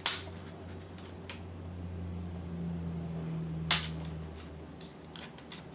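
Plastic clips of a Toshiba Satellite C855D laptop's screen bezel snapping loose as a flat screwdriver pries and twists it off: a sharp click at the start, a faint one about a second later, another sharp click near four seconds, then a few light ticks, over a low hum.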